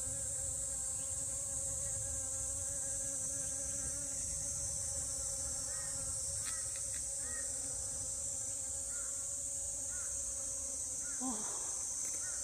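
A swarm of honey bees buzzing steadily, a constant hum with a steady high hiss above it. A few faint short chirps come through midway and near the end, and a louder buzz swells briefly near the end as a bee passes close.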